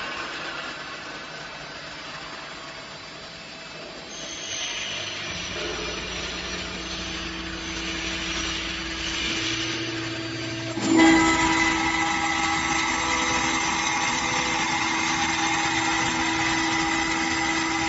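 CNC router spindle running and milling a carbon steel sheet: a steady whine of several held tones over a hiss. It grows louder about four seconds in and jumps up sharply about eleven seconds in, then holds steady.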